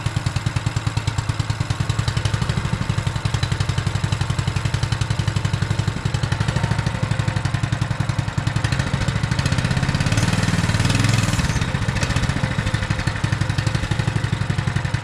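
212cc single-cylinder four-stroke engine on a mini bike running at a steady idle, with a brief rev about ten seconds in.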